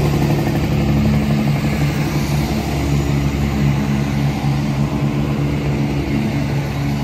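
Diesel train engine running steadily: a loud, even hum with several low tones holding the same pitch throughout.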